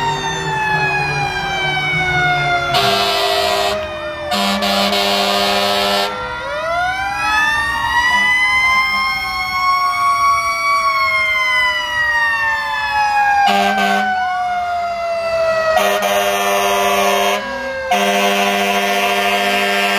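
Fire truck sirens wailing, several at once, each rising and falling slowly in pitch. Five long, steady horn blasts cut in over them.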